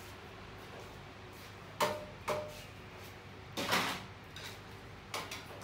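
Kitchen clatter of dishes and metal utensils: two sharp clinks with a short ring about two seconds in, a longer clattering knock a little before four seconds, and one more knock near the end, over a steady low hum.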